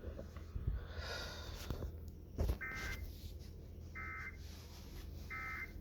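Three short bursts of Emergency Alert System end-of-message data tones, each a buzzy two-tone squawk, about a second and a half apart. They mark the end of the weather-radio alert. A low thump comes just before the first burst.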